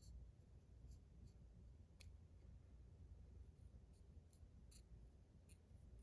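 Near silence: room tone with a few faint, isolated small clicks from handling, the clearest about two seconds in and near the end.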